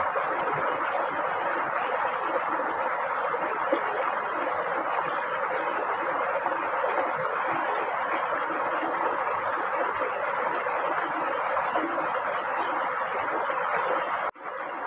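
Steady rush of flowing stream water, dropping out for an instant near the end.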